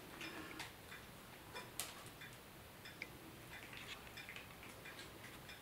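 Cat crunching a dry treat: faint, irregular small clicks, with one sharper click a couple of seconds in.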